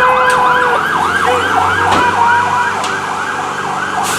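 Police vehicle siren in a fast yelp, sweeping up and down about three times a second, with a few sharp knocks over it.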